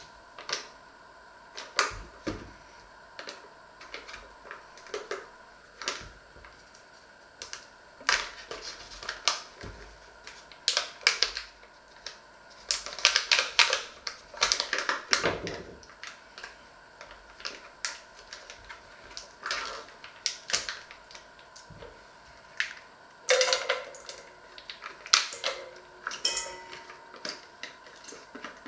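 Food-preparation handling noises: irregular clicks, taps and crinkles from opening a small foil-lidded packet with a knife on a wooden cutting board and emptying a container into a stainless steel bowl, with busier clusters of clatter partway through and near the end, over a faint steady hum.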